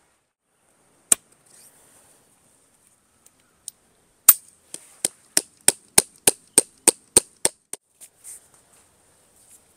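Sharp hammer strikes: a single blow, then a couple of seconds later a steady run of about fourteen blows, about three a second, growing fainter toward the end.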